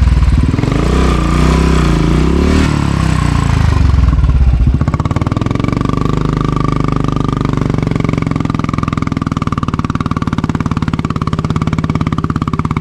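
Royal Enfield motorcycle's single-cylinder engine labouring up a steep, rough dirt trail, revving unevenly. About five seconds in, music comes in over the engine.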